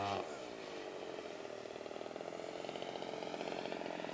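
Engine of a radio-controlled scale Hawker Hurricane model in flight. Its pitch drops just after the start as it passes by, then it becomes a steady buzz that slowly grows louder.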